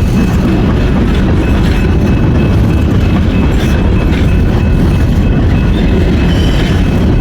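Norfolk Southern freight train's cars rolling past close by: a loud, steady rumble of wheels on rail, with a faint high wheel squeal and occasional clicks.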